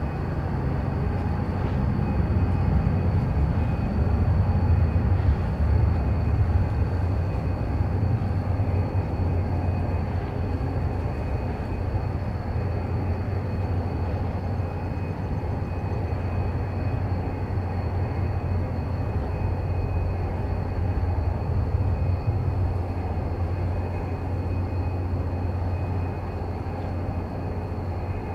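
Porsche 911 GT3 (997) flat-six engine at low revs as the car moves slowly away, a steady low rumble that swells a little a few seconds in and then holds even.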